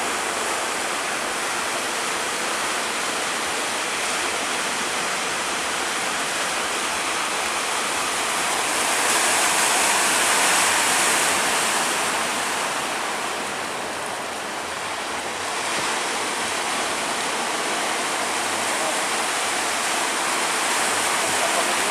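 Sea water rushing and washing against a ship in heavy waves, a steady rush that swells louder for a few seconds midway.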